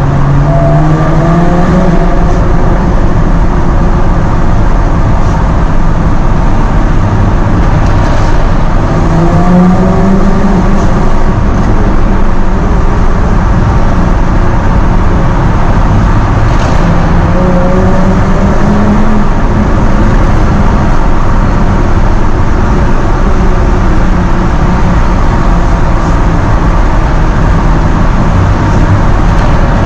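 Jaguar F-Type's engine pulling under acceleration, its pitch climbing three times as it works up through the gears, over a steady bed of road noise.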